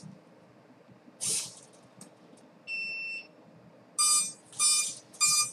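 Electronic beeps from an RC flying wing's on-board electronics. There is one higher beep near the middle, then a run of lower beeps at about two a second toward the end, after a short hiss about a second in.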